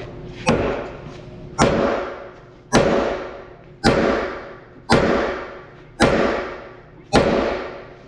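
Sledgehammer blows on a homemade steel bushing driver, driving a new pivot bushing into the lift arm of a Kubota SVL90-2 skid steer. Seven ringing metal-on-metal strikes, about one a second, each ring fading before the next blow.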